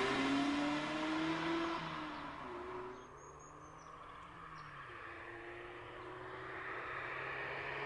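Mazda MX-5 roadster's four-cylinder engine pulling hard with its pitch rising, fading as the car drives away; after a quieter moment about three seconds in, the engine sound grows again as the car approaches.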